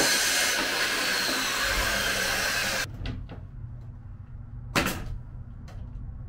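Corded power saw cutting a door rail: a loud, steady hiss that stops abruptly about three seconds in. After that come a few light knocks and, near the end, a brief loud burst as a drill drives a screw into the rail.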